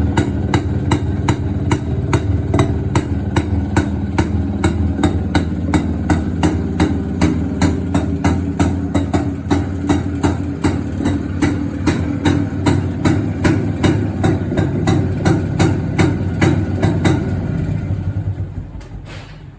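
Yezdi Roadking 250cc two-stroke single-cylinder engine idling, with a sharp click coming through about two and a half times a second. The engine sound dies away near the end.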